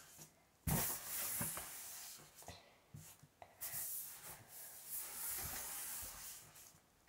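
Rustling and scratching of loose rainbow confetti being handled and put back into its container, in two long stretches with a few light clicks.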